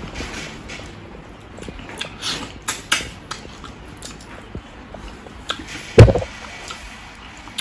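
Eating sounds: faint chewing and mouth clicks, with a single loud, dull thump about six seconds in.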